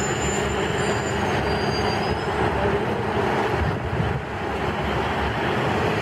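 MCI D4500 transit coach passing close and pulling away, its diesel engine and road noise running steadily, with a thin high whistle during the first two seconds.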